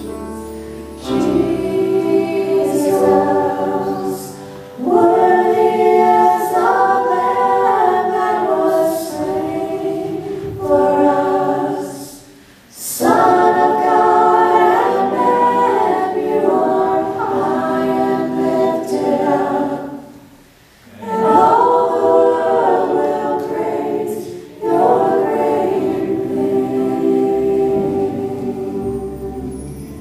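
Church worship team singing a gospel song together through microphones, phrase after phrase, with short breaks between the sung lines.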